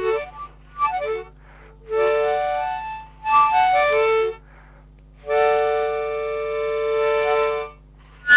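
Harmonica playing chords: a few short phrases, then one long held chord of about two seconds near the end.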